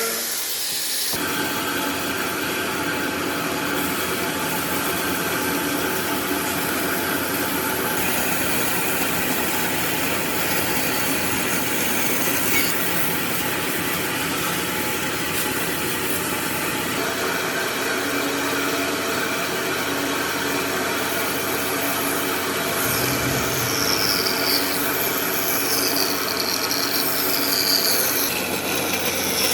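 Electric power tool running steadily on wood, a motor hum under constant noise of the tool cutting or sanding, shifting abruptly a few times.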